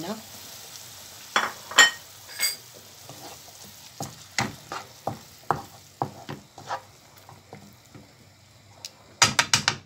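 Grated tomato and onion sizzling in a non-stick frying pan while a wooden spatula stirs them, knocking and scraping against the pan. There are a few loud knocks in the first couple of seconds and a quick run of sharp knocks near the end.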